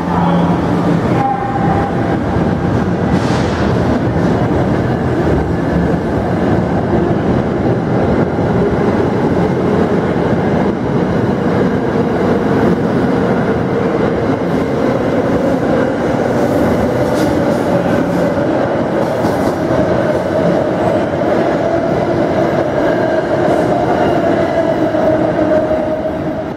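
New Jersey Transit train moving along a station platform: a steady loud rumble of wheels on rail with some clickety-clack, and a sustained whine that slowly rises in pitch through the second half.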